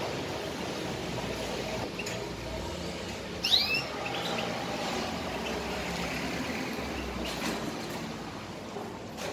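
Canary giving one short call of two or three quick sweeping notes about three and a half seconds in, over a steady low background murmur.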